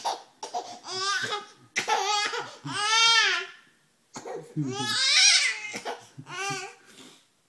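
Infant laughing and squealing in several long, high-pitched bursts, the loudest about three and five seconds in, with a man laughing along between them.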